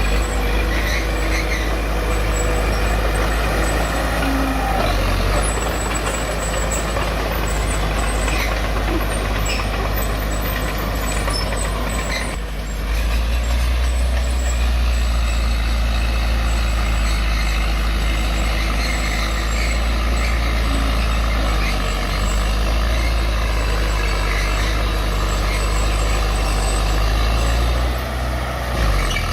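Heavy diesel earthmoving machinery running steadily under load, a low, continuous engine rumble. About twelve seconds in it dips briefly, then the low rumble comes back stronger, as if the machine has throttled up.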